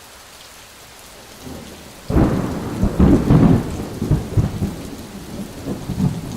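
Steady rain falling, then about two seconds in a sudden loud thunderclap that rolls on in uneven rumbles.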